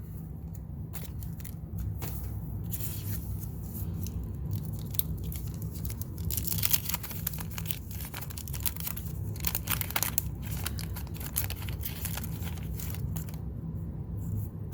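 Wax paper wrapper of a 1987 Garbage Pail Kids sticker-card pack being torn open and crinkled by hand: an irregular run of crackles and rustles, busiest around six to ten seconds in, over a steady low hum.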